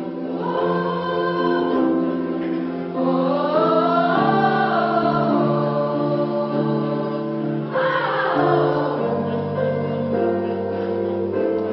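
Polyphonic choir singing: several voice parts hold sustained chords while an upper line rises and falls over them.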